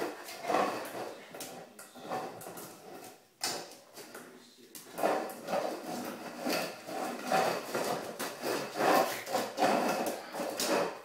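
Dog bowl being pushed and pawed by a puppy, scraping and knocking on a tiled floor in quick irregular clatters, with a short lull a few seconds in and busier clattering after it.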